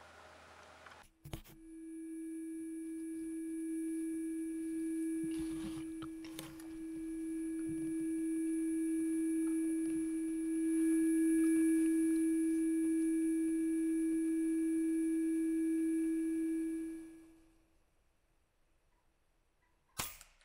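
A steady hum at one pitch that starts with a click about a second in, swells and dips in loudness, then fades out well before the end. A few faint clicks fall during it, and there is a sharp click near the end.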